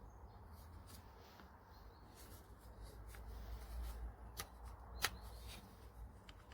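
Light rustling and scattered small clicks of handling, with one sharper click about five seconds in, over a low rumble.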